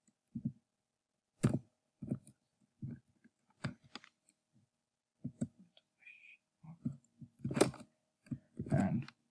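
Scattered keystrokes and clicks from a computer keyboard and mouse: about a dozen separate taps with pauses between them, closer together near the end.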